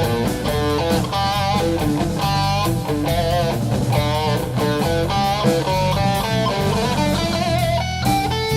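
Live rock band playing an instrumental passage. An electric guitar plays a lead line of held, bending notes with vibrato over bass guitar and drums.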